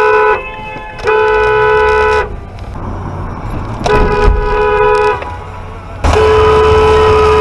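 Car horn honking in separate blasts: a short one ending just after the start, a one-second honk, another about a second long just past the middle, then a long held blast starting near the end. Low vehicle rumble runs underneath.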